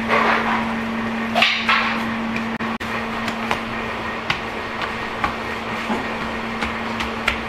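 A large mass of dumpling dough being kneaded and pressed by hand on a wooden table: irregular short knocks and thumps, with two louder bursts in the first two seconds, over a steady hum.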